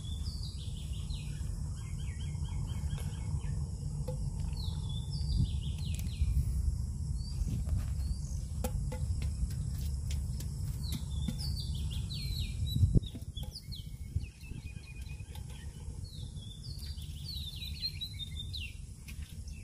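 Birds chirping in clusters of short, falling calls over a steady high insect drone and a low rumble, with scattered light clicks of snail shells being handled. A thump about two-thirds of the way through, after which the low rumble drops away.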